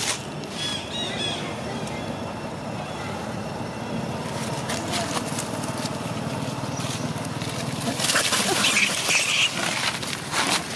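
Long-tailed macaques squealing, with a few short high squeaks about a second in and a loud burst of screeching and scuffling on dry leaves about eight seconds in as the monkeys fight and chase.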